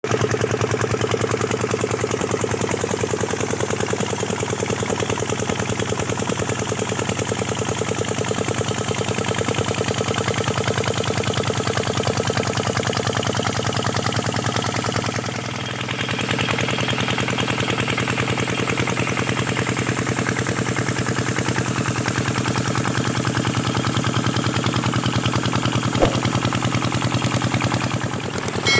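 5 hp Kirloskar single-cylinder diesel engine running steadily, driving a water pump, with an even, rapid firing beat. The sound dips briefly and its tone shifts about halfway through, and there is a single sharp click near the end.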